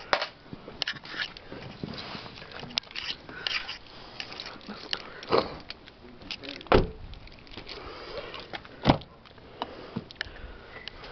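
Scattered clicks and knocks from handling around a car's open doors and interior. Two louder thumps come a little past halfway and again near the end.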